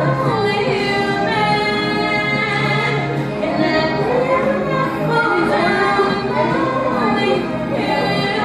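A woman singing solo, gliding between notes and holding long phrases, over steady musical accompaniment.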